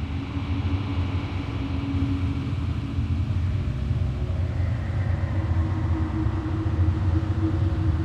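A steady low rumble with a few faint held tones above it.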